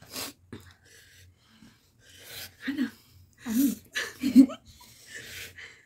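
Several sharp, breathy hisses of people blowing and sucking air through the mouth against the burn of spicy ramen, mixed with a few short bursts of voice or laughter.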